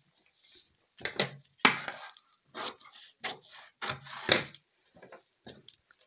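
Newspaper being handled and folded flat on a wooden tabletop: a string of dry crackling rustles and knocks, the loudest about four seconds in.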